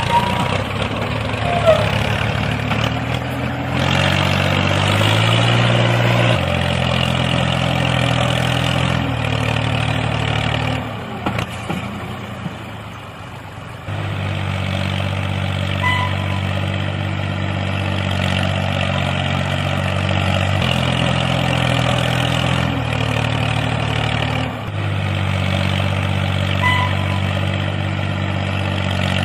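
Tractor engine running at a steady idle, a low engine note that changes pitch in sudden steps several times. It drops quieter for a few seconds in the middle.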